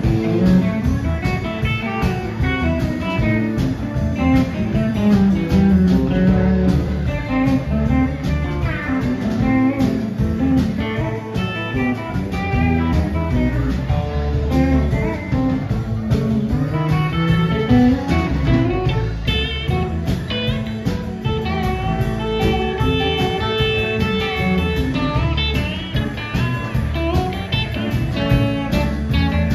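Live band playing a blues-rock instrumental passage: electric guitars, bass guitar, pedal steel guitar and a drum kit, with no singing.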